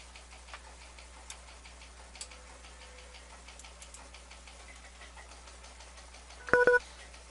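Faint, irregular clicks over a low steady hum, then a short, loud electronic beep about six and a half seconds in.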